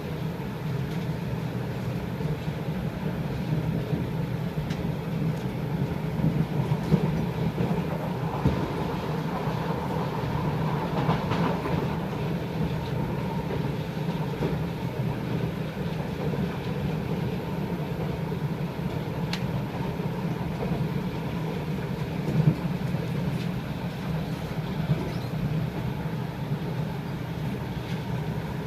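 Kawasaki/Nippon Sharyo C751B metro train running at speed, heard from inside the carriage: a steady rumble of motors and wheels on rail with occasional clatter and knocks.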